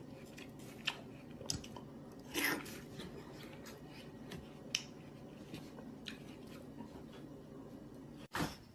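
Quiet mouth sounds of a person tasting food off a spoon: scattered lip smacks and chewing clicks, with a short louder breathy noise about two and a half seconds in and another near the end.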